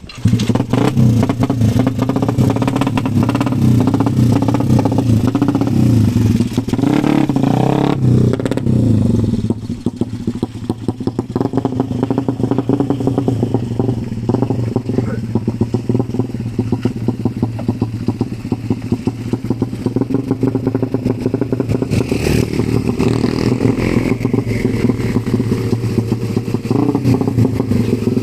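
Suzuki Satria FU racing engine with a ported head, running steadily at a high idle with a rapid firing rattle, louder for about the first nine seconds and then settling a little lower. It is being tried on a different CDI because the ignition mapping is not right yet.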